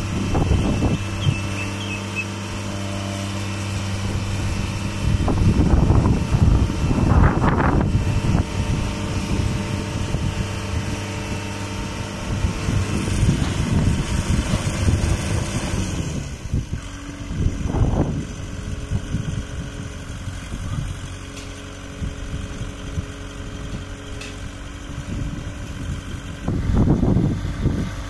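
Diesel engines of a tracked Claas combine harvester and a Mahindra Arjun Novo tractor running steadily, with several louder surges along the way as the combine is driven onto the tractor's trailer.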